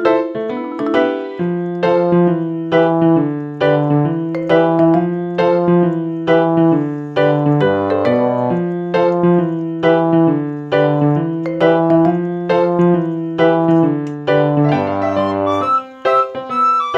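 Background piano music: a steady stream of repeated notes over held bass notes.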